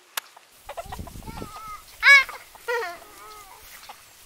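Chickens clucking: a run of short, arching calls, the loudest about two seconds in. A sharp click comes just after the start.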